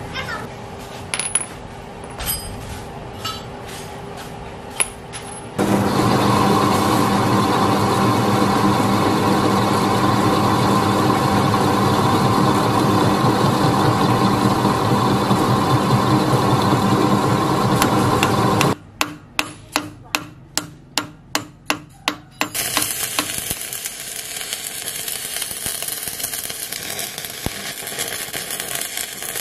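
Steel sprocket and bushing clinking as they are handled. Then a metal lathe runs steadily, turning a steel bushing, and cuts off suddenly, followed by a quick run of about a dozen evenly spaced clicks. From near the end comes the crackling hiss of electric arc welding as the sprocket is welded onto the bushing.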